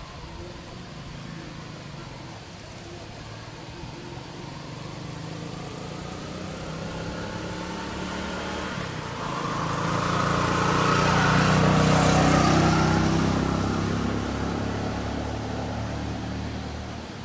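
A motor vehicle approaching and passing on the road: its engine and tyre noise swell gradually, are loudest about twelve seconds in, then fade away.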